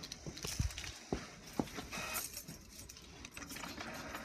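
A few light, scattered knocks and clicks, three of them in the first two seconds, with a brief faint tone about two seconds in.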